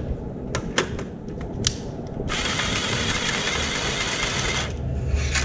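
Milwaukee M12 Fuel brushless cordless driver with a 12 mm socket, running steadily for about two seconds to back out an exhaust hanger bolt while a wrench holds the nut. A few sharp clicks of tool handling come before it.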